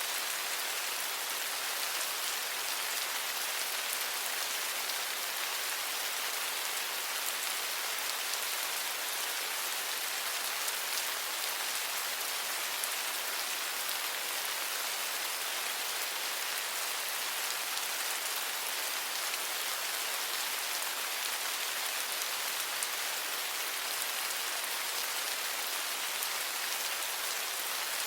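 Steady rain falling: a continuous hiss made of many fine drop impacts, even in level throughout.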